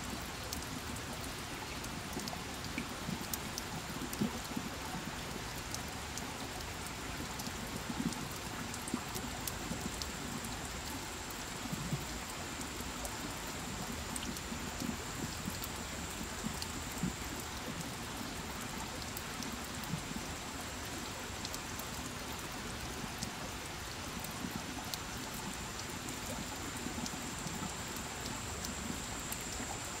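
Water drops pattering steadily, many small drops with now and then a heavier one.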